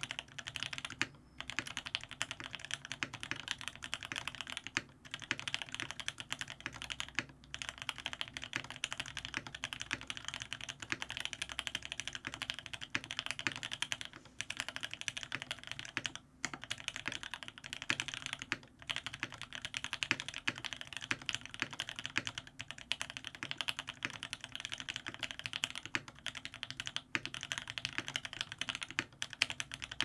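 Fast, continuous typing on a Lyn Whale Special custom mechanical keyboard with lubed H1 switches, an aluminium plate and GMK keycaps. The keyboard sits on a bare wooden desk with no deskpad under it. The keystrokes come in a dense stream of clacks, broken by a few short pauses every few seconds.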